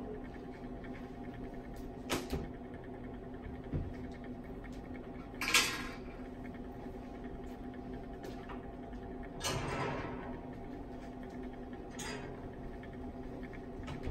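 Steady low hum of lab room background, with a few scattered knocks and brief rustling noises, the loudest a short rustle about five and a half seconds in.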